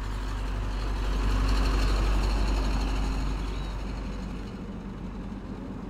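Low, steady rumble of a distant motor-vehicle engine with a rushing noise over it, swelling about a second and a half in and then fading away.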